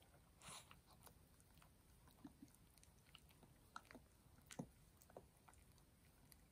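Near silence with faint, scattered small wet clicks of a Maltese dog licking a person's hands, mixed with light laptop keystrokes.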